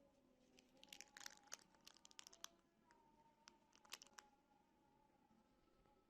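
Faint crinkling and crackling: a run of small sharp clicks starting about half a second in, and a second shorter cluster near four seconds, over otherwise near silence.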